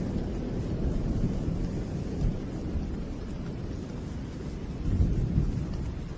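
Thunder rumbling low and continuously over steady rain, swelling louder about five seconds in.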